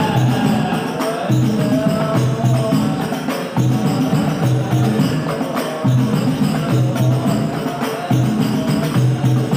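Indonesian rebana frame-drum ensemble (hadrah) playing a steady, repeating rhythm while a male singer sings through a microphone.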